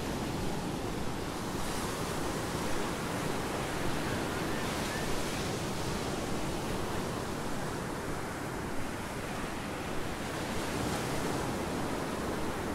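Small ocean waves breaking and washing onto a sandy beach in a steady rush, mixed with wind on the microphone.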